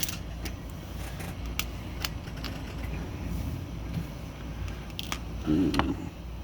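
Small metal clicks and taps of hand tools on a typewriter's paper injector assembly while a C-clip is being worked off, over a low steady hum. There is a brief louder handling sound near the end.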